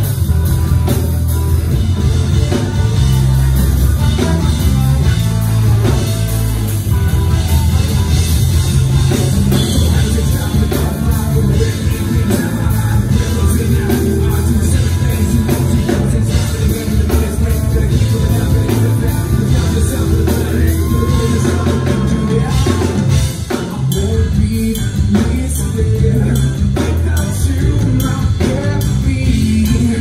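Live rock band playing loudly and continuously, with drum kit and guitar.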